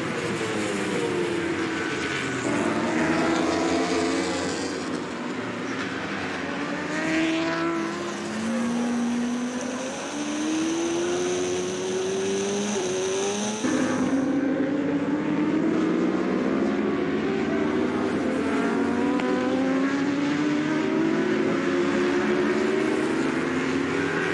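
Racing superbike engines at high revs, their pitch climbing through upshifts and dropping on downshifts as the bikes run wheel to wheel. A thin steady high whine sits over the engines in the middle, and the sound changes abruptly about halfway through.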